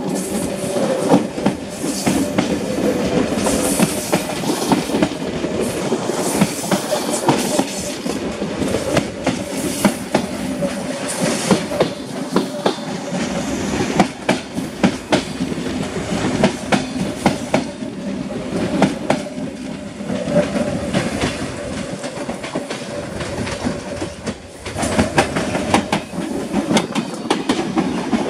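A CPTM Série 1700 electric multiple unit, built by Mafersa, running past close by, its wheels clattering rhythmically over the rail joints, with a humming tone that comes and goes.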